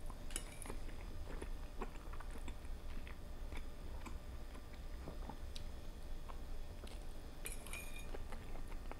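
Close-miked chewing of creamy fettuccine, with many small wet clicks of the mouth. A metal fork clinks and scrapes on the plate with a short ringing sound, about half a second in and again near the end.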